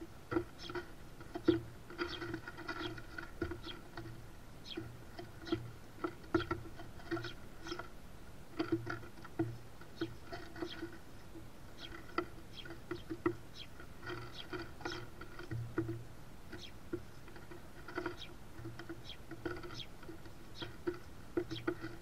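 House sparrows pecking and cracking sunflower seeds on a wooden platform feeder: irregular quick taps and clicks of beaks on seed and wood, several a second.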